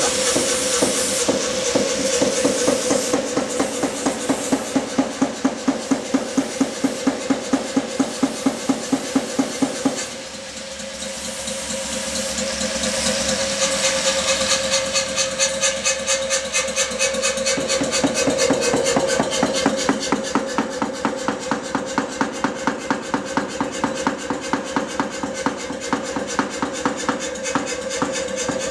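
Pneumatic forging hammer running, its ram cycling in a regular beat of about three strokes a second over a steady motor hum. The beat drops away about ten seconds in, and the machine goes on running with a faster, lighter rhythm in the second half.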